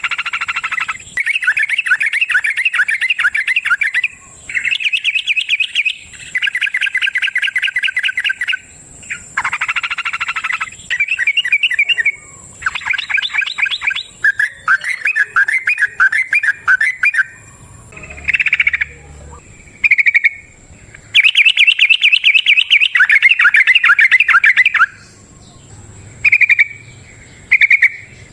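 Yellow-vented bulbul (trucukan) singing its long rolling song: repeated bursts of rapid bubbling notes, each one to three seconds long, with short pauses between.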